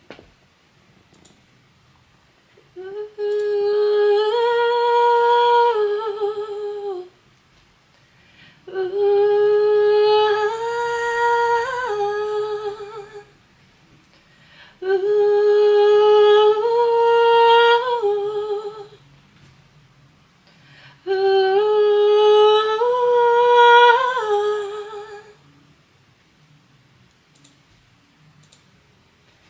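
A woman's voice singing the same high, held phrase four times in a row, each about four seconds long with a pause between, each note stepping up a little and falling back: four takes of a higher vocal part being recorded at a studio microphone.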